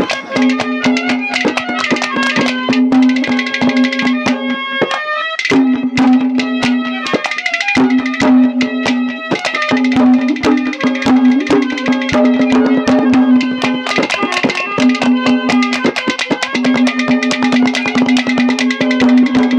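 Instrumental interlude of ragni folk music: rapid hand-drum strokes over a steady held melodic note, which breaks off briefly about five and again about eight seconds in.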